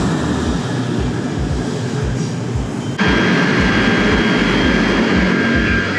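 Train running, a steady rumble and hiss; about halfway through it cuts abruptly to a slightly louder stretch with a steady high-pitched whine over the rumble.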